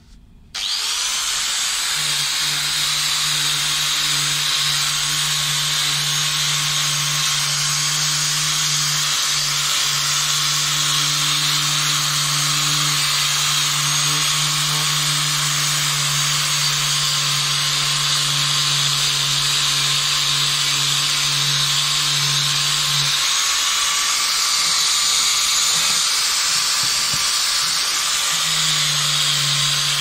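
Electric angle grinder with a twisted-knot steel wire cup brush starting up and running steadily as it scours rust off a steel angle iron, the wire brush hissing against the metal. The motor's tone shifts for a few seconds near the end.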